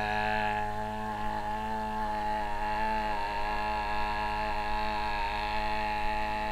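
A person's voice holding one long, steady note into an electric pedestal fan, a droning 'aaah' at one unchanging pitch.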